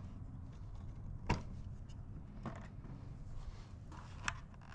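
A few short clicks and knocks from the Hunter X2 irrigation controller's plastic housing as it is handled on the wall and its hinged front cover is swung open.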